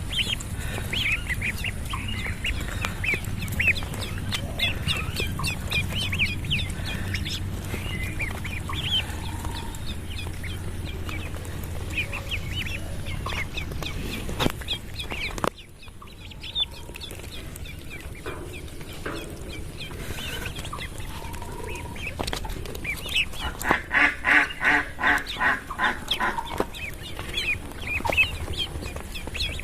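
Ducklings peeping: many short, high chirps overlapping one another. A low hum under them stops abruptly about halfway. About three-quarters through, a louder run of rapid, pulsed calls rises over the peeping for a few seconds.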